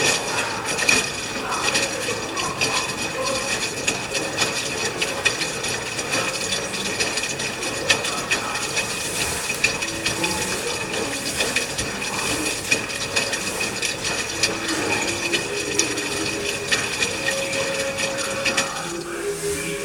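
LG washing machine running a cotton cycle: water splashing and flowing in the tub, with frequent short knocks and a steady high whine.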